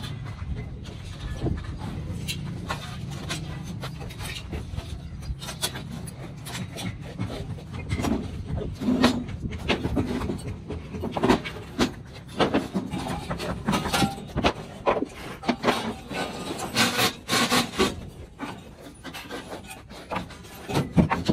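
Timber shuttering planks being handled and passed up through steel scaffolding: irregular knocks and clatter of wood against wood and metal.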